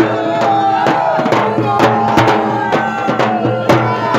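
A drum slung at a man's waist beaten in a steady rhythm, about two strong strokes a second, with a wavering melody line above the beat.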